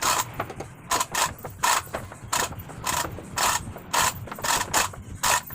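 Hand-operated ratchet mechanism working in short repeated strokes, about two clicking bursts a second.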